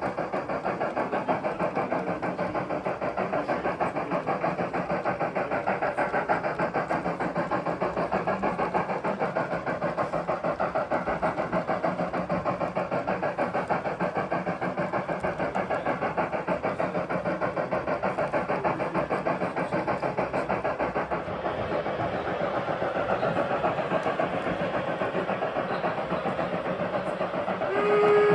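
Onboard sound system of a KM1 gauge 1 model of the class 50.40 Franco-Crosti steam locomotive, playing rapid exhaust chuffs as the model runs, with more steam hiss from about 21 seconds in. A steam whistle sounds near the end.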